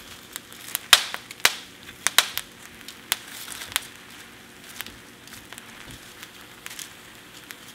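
Shrimp being turned over with wooden chopsticks on a bed of hot coarse sea salt in a foil-lined pan: irregular sharp clicks and crackles of shells, salt and foil, a few louder ones in the first few seconds.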